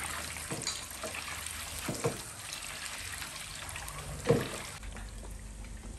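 Peeled hard-boiled eggs deep-frying in hot oil in a wok, a steady sizzle, with a few knocks of a spatula against the pan, the loudest about four seconds in.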